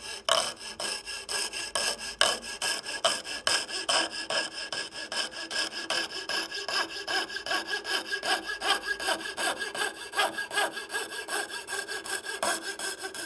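Coping saw cutting a curved line through MDF, with quick, even back-and-forth strokes.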